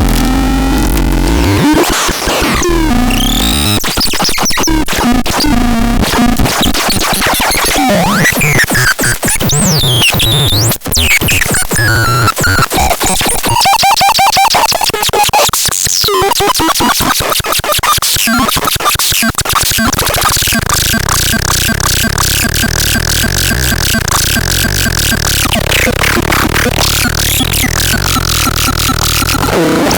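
Electronic synthesizer sounds: sweeping pitch glides, rapid buzzing pulses and glitchy noise. About two-thirds of the way in they settle into a steady, pulsing high buzz, which breaks off a few seconds later.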